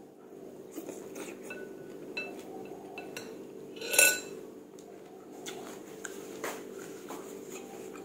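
A metal spoon and wooden chopsticks clicking against a ceramic soup bowl, with one loud ringing clink about four seconds in as the spoon strikes the bowl.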